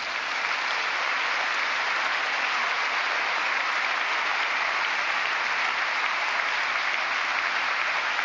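Large audience applauding, swelling up over the first half second and then clapping at a steady level.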